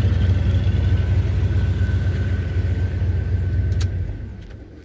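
An old pickup truck engine idles steadily, with a faint constant whine above the low rumble. Near the end it dies away to quiet.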